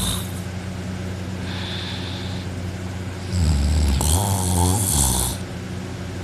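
A person snoring loudly in deep sleep, lying on his back with his mouth open. One long snore starts about three seconds in, the tail of another snore fades at the start, and a faint breath falls between them.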